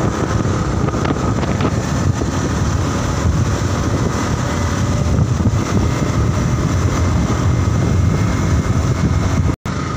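Motorcycle riding along at a steady speed: the engine's steady rumble mixed with wind buffeting the microphone. The sound cuts out for an instant near the end.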